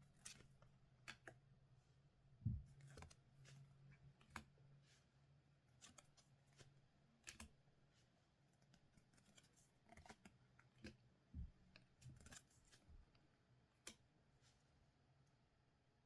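Faint, scattered soft clicks and crinkles of trading-card packs and cards being handled.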